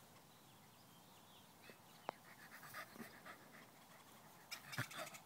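Cocker spaniel panting in quick, faint breaths that start about two seconds in and grow louder near the end, with a single sharp click about two seconds in.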